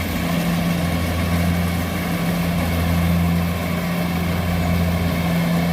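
Kubota rice combine harvester's engine running steadily, a constant even drone.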